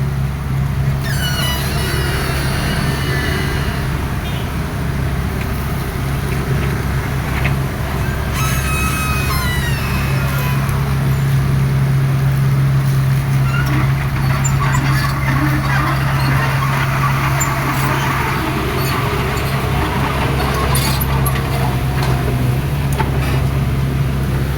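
Excavator's diesel engine running steadily at a constant low drone, with a few short high-pitched squeals or chirps about a second in and again about eight seconds in.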